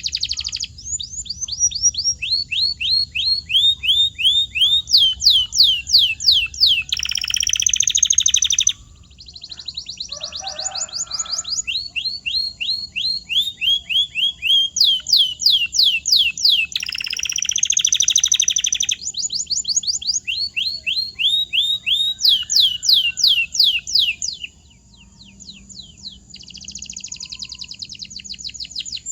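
Domestic canary singing: long phrases of fast, repeated down-sweeping high notes, broken twice by a dense rolling trill about two seconds long.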